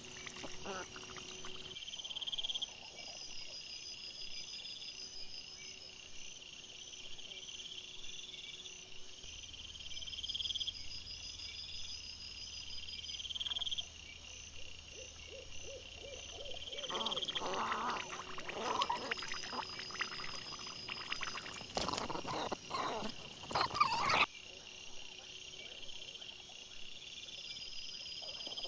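Night insects chirping in steady repeating trills, with a louder stretch of scuffling noise from wild boar and piglets foraging right by the camera between about 17 and 24 seconds in.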